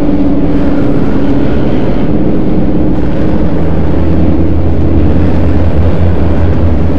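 Loud, dense music: a wall of sustained, held notes over a heavy bass, with the low end swelling about three seconds in.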